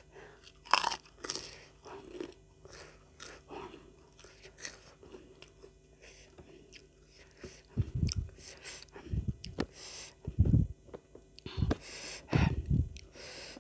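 Close-up chewing and crunching of rice and raw lalapan vegetables eaten by hand, with sharp crackling bites. A few low thumps come in the second half.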